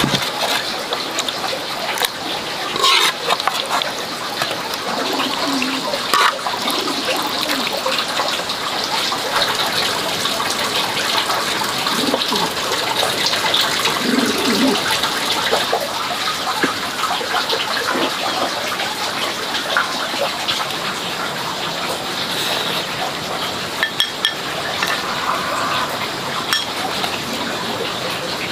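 Steady rushing of running water, with a few light clicks and knocks scattered through it.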